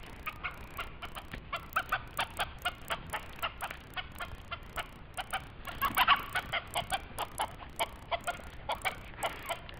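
Chickens giving rapid alarm clucks, several a second, as dogs chase them, with a louder squawk about six seconds in.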